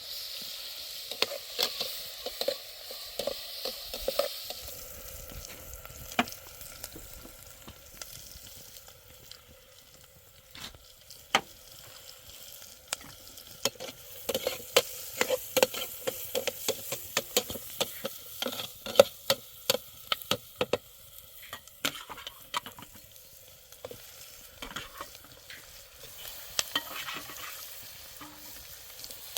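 Irregular scraping and rustling with many sharp clicks over a steady hiss, busiest in the middle stretch.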